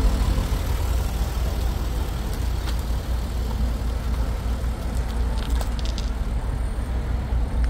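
A car's engine and exhaust running with a steady deep rumble, with a few faint clicks about five and a half seconds in.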